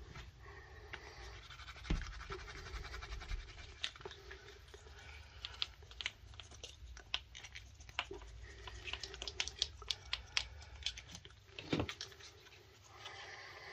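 Small scratching, rubbing and clicking sounds of hands working close to the microphone, irregular and densest in the middle, with a sharper knock near the end, over heavy breathing and sniffling from a head cold.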